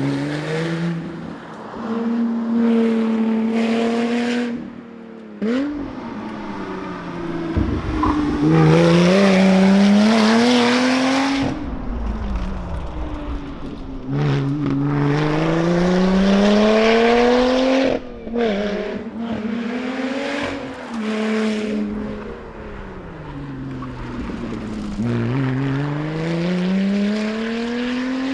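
Lotus Exige Sport 350's supercharged 3.5-litre V6 driven hard, its note climbing in pitch through long pulls and dropping sharply at each lift or gear change, about four times, with a few short rises and falls in between.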